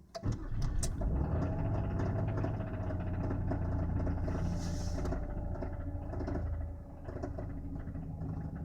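Mazda Xedos 9 V6 engine starting and then idling steadily, with a repeated knock from inside the engine. The level drops a little about seven seconds in as the revs settle.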